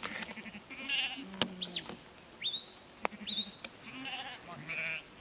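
A flock of sheep bleating repeatedly while they are driven by a working sheepdog. About a second and a half in come three short, high whistled notes that rise and fall, each under half a second long, along with a few sharp clicks.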